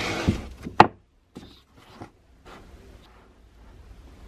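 Paperback books being set on a shelf and pushed into line: a brief rustle, one sharp knock just under a second in, then a few faint taps as the books are nudged into place.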